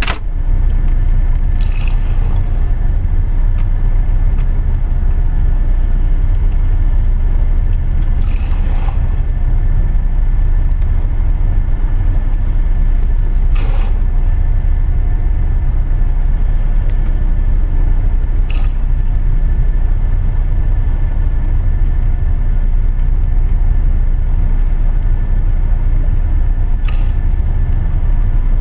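Steady deep rumble of a ship's engines and hull under way, heard inside a cabin, with a faint machinery hum over it. About six brief swishes stand out over the rumble, a few seconds apart.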